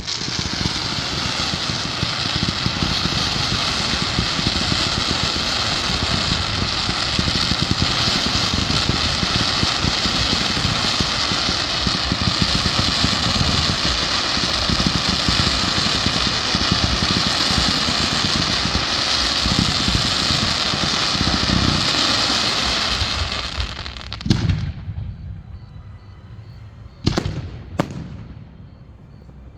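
Aerial fireworks display: a long, dense stretch of crackling and rapid popping over many low booms. It dies away about 24 seconds in, and a few single sharp bangs follow near the end.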